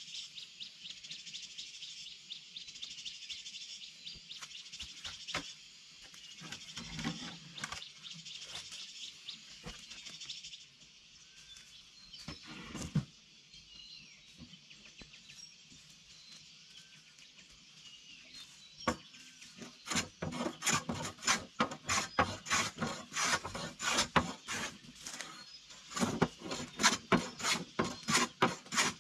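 Steady high chirping of the forest, with a few knocks, for about the first third; then, from about two-thirds in, wood being worked with a hand tool in quick regular rasping strokes, about three a second, with a short pause near the end.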